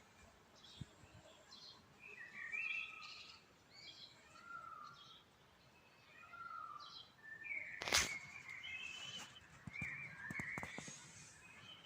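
Songbirds singing: a run of short chirped and whistled phrases, one after another. A sharp knock sounds about eight seconds in, followed by a few fainter clicks.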